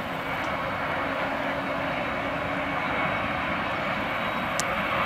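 Jet engines of a taxiing Boeing 767-300 airliner running at low thrust: a steady whooshing hiss with a faint high whine, growing slightly louder.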